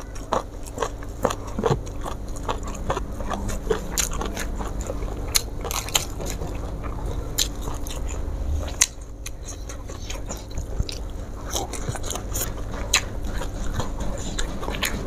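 A person chewing and biting raw vegetables close to a lapel microphone, with many sharp, irregular crunches and a brief lull about two thirds of the way through.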